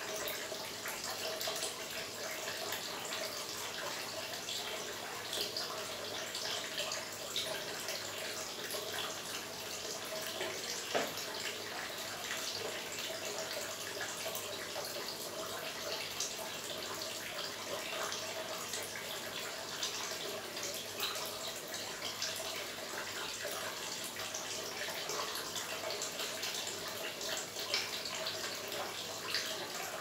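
Small fountain in a miniature water garden, water trickling and splashing steadily into a pool, with many small drips and splashes.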